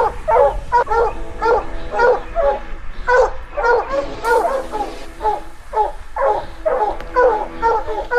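Pack of hunting hounds barking and bawling in rapid, overlapping calls, about two or three a second. This is baying at the tree, the sign of a mountain lion held treed.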